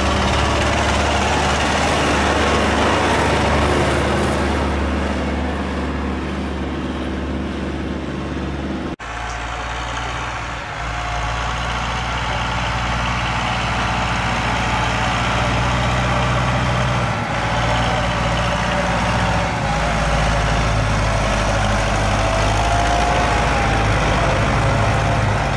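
Tractor engine running steadily as the tractor pushes snow with its front blade. The sound breaks off sharply about nine seconds in and picks up again with the engine at a different pitch.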